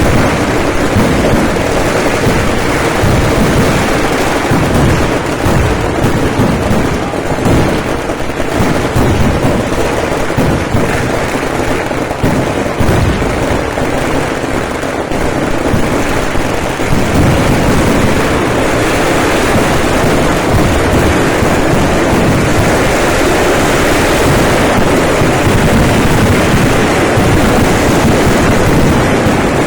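Fireworks going off in a dense, continuous barrage of bangs that run together into a rumble.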